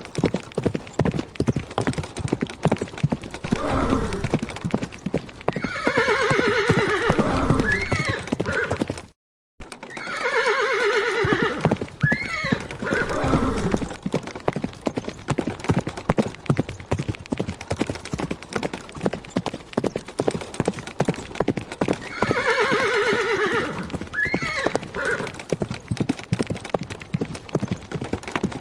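Horse hooves clip-clopping steadily, with a horse neighing three times: a long, wavering whinny that falls in pitch, about a fifth of the way in, again just after a brief cut to silence a third of the way in, and again past three-quarters.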